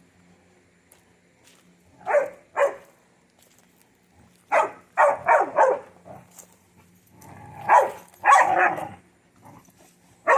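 Dog barking in short bursts: two barks about two seconds in, a quick run of four barks around five seconds, and two longer barks near eight seconds.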